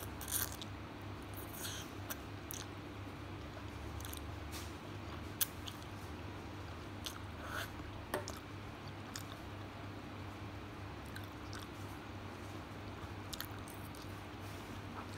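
Close-mouthed eating sounds of yellow noodles: a slurp as the noodles are drawn in at the start, then wet chewing with small crackles. Two sharp clicks come from a metal fork against the ceramic bowl, about five and eight seconds in.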